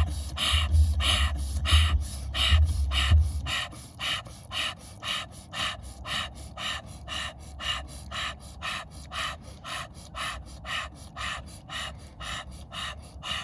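Fast, forceful in-and-out breathing through the mouth, about three breaths a second, steady and rhythmic: a round of rapid power breathing in a breathwork exercise. A low rhythmic thumping runs under it and stops about three and a half seconds in.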